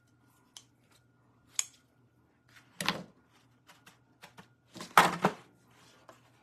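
Light clicks and knocks of scissors and a metal baking pan being handled on a wooden table, with a louder knock about three seconds in and the loudest clatter about five seconds in.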